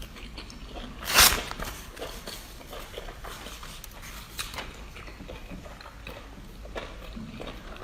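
A person eating noisily close to the microphone: wet chewing and smacking clicks, with one loud burst of noise about a second in.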